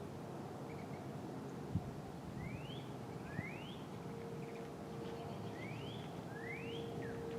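Distant P-50 outdoor warning siren held on by a fault, heard as a faint steady tone that swells and fades. A bird calls over it with four short rising whistles in two pairs. The siren's fault is taken to be a welded relay.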